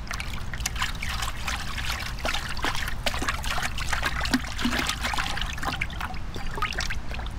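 Watery clay slip trickling and dribbling out of a tipped plastic bucket, in many small irregular splashes.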